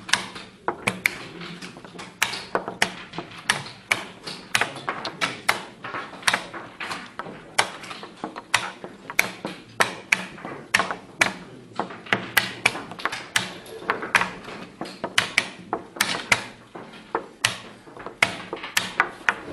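Rapid, irregular clacking of wooden chess pieces set down on the board and the buttons of a mechanical two-dial chess clock being slapped, two or three sharp clicks a second: a blitz game played at full speed.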